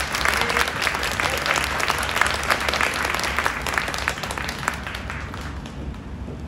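Audience applauding with many hands clapping, thinning out and fading away after about five seconds.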